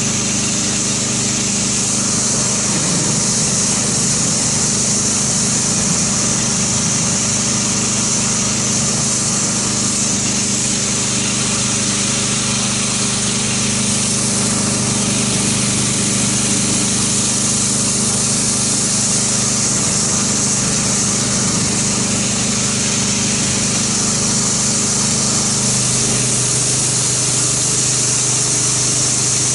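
Kärcher pressure washer running steadily, its motor and pump humming under the hiss of the water jet as the wand rinses snow foam off a car's paint.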